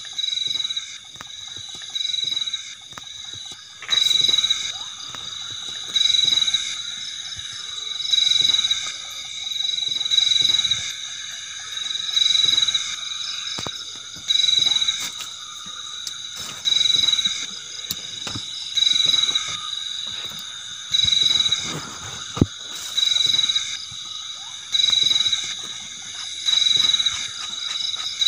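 Crickets chirping: high-pitched pulsed trills about a second long, repeating roughly every two seconds over a steady chorus of more crickets.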